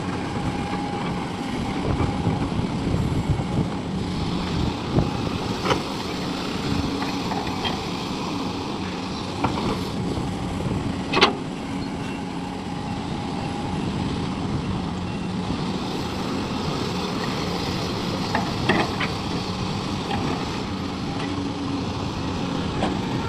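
Excavator's diesel engine running steadily, with a few sharp knocks now and then, the loudest about eleven seconds in.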